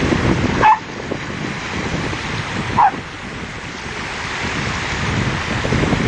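A dog barks twice, two short barks about two seconds apart, over steady surf and wind buffeting the microphone.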